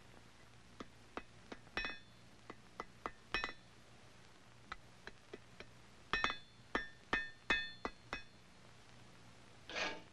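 Hammer striking a hot spring-steel lock spring on an anvil to bend it into a V, with light taps at first and then a run of about half a dozen heavier blows that ring out brightly from the anvil. Near the end a file starts rasping in steady strokes.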